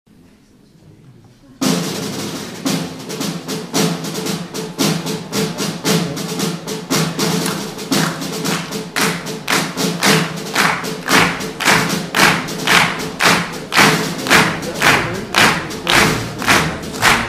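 Piano music starts abruptly about a second and a half in, held chords over a steady percussive beat of about two hits a second that becomes more pronounced toward the end.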